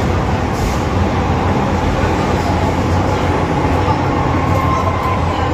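First-generation MTR M-Train electric multiple unit running in the tunnel, a steady loud rumble of wheels on rail and car body with a faint whine that rises slightly about four seconds in.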